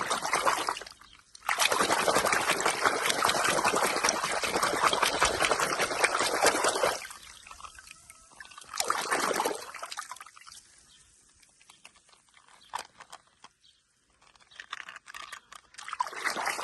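Water running in bursts: a long stream of about five seconds, a short burst near the middle, and another starting near the end.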